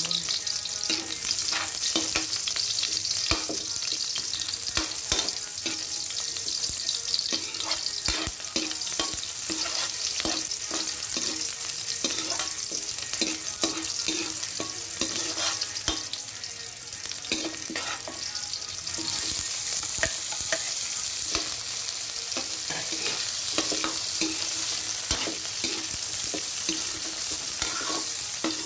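Garlic and onion sizzling in hot oil in a metal wok, with a steady hiss. A metal spatula scrapes and taps against the pan as the food is stirred, making many short clicks.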